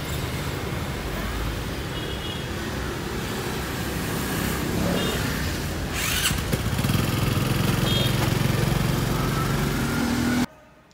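Small motorbike pulling a sidecar vendor cart rides off, its engine growing louder about two-thirds of the way in over steady street noise, then stopping abruptly near the end.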